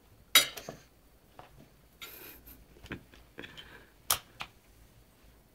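Plastic high-chair seat-belt buckle clicking and knocking as a toddler fumbles to fasten it. A sharp click comes about half a second in, then a few softer knocks and a rustle, and another sharp click about four seconds in.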